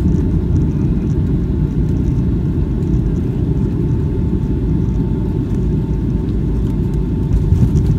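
Cabin noise of a Boeing 757-200 flaring just above the runway: a steady low rumble of engines and airflow with a faint steady whine. A few louder bumps come near the end, around touchdown.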